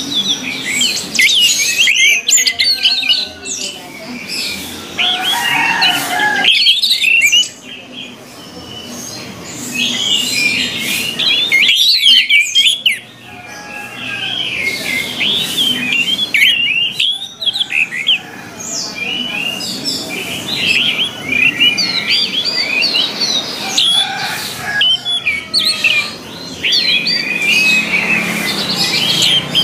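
Orange-headed thrushes singing: a loud, dense stream of quick, high twittering and chirping phrases, broken by a few short pauses.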